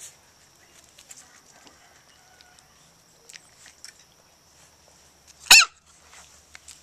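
Siberian husky puppy giving one short, high-pitched yelp about five and a half seconds in.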